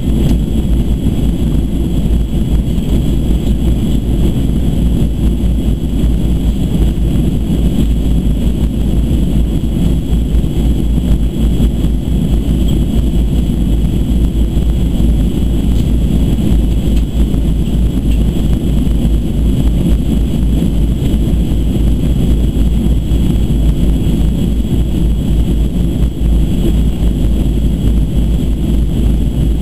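Steady cabin noise of a Boeing 737-200 Advanced in flight: the low, even rush of its Pratt & Whitney JT8D turbofans and airflow, with a thin high whine over it.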